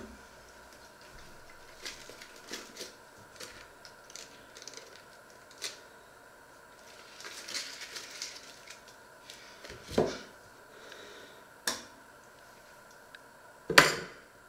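Kitchen handling sounds: scattered light clicks, the crinkle of a foil butter wrapper being opened, then a few sharp knocks against a stainless steel pot as butter goes in, the loudest near the end.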